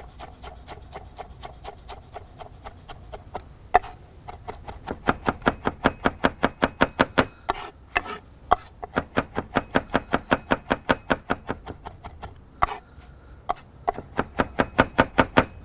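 Chef's knife chopping fresh mint and parsley finely on a wooden cutting board: a fast, even run of knocks about five a second, with a short lull near the end and a few sharper knocks.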